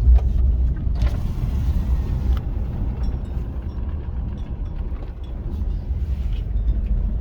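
Mitsubishi Pajero iO driving, heard from inside the cabin: a steady low rumble of engine and tyres on the road. About a second in there is a brief rise in hiss that lasts just over a second.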